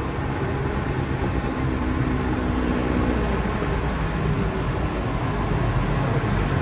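Steady low drone of motor vehicle engines, growing slightly louder toward the end.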